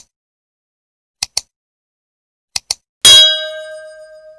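Mouse-click sound effects: a click at the start, then two quick double-clicks, followed about three seconds in by a single bright bell ding, the loudest sound, which rings on and fades away.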